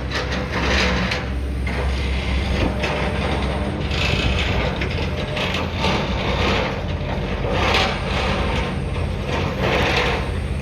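Machinery compacting backfilled dirt in a hole: a steady low engine drone with swells of louder noise every few seconds.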